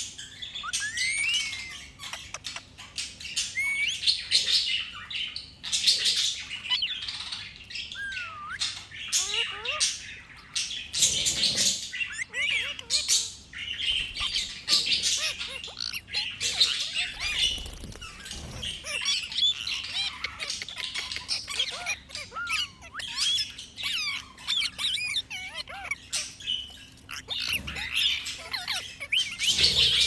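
Indian ringneck parrot chattering in a near-constant run of short, high-pitched squawks and chirps, many of them quick rising and falling whistles.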